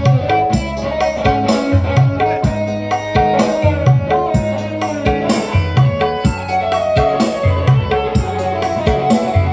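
Music with a steady beat and heavy bass played loud through an Ashley TW210 LA line array speaker stack, dual 10-inch woofers plus tweeter, during a sound test.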